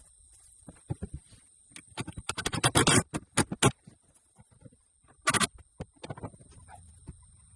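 A run of sharp clicks and knocks, coming thick and fast about two to three and a half seconds in, then one short clatter just past five seconds.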